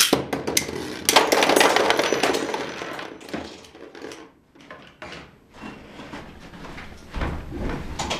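Beyblade spinning tops clashing in a plastic stadium: a sharp crack, then about a second and a half of fast clattering and scraping, then fainter rattles and clicks as pieces come to rest. The clash bursts one top apart, which the player puts down to stamina and defense types not mixing.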